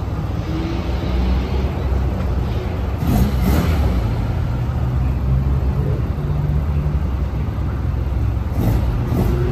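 A car engine running at low revs close by, a steady low drone, with brief louder surges about three seconds in and again near the end.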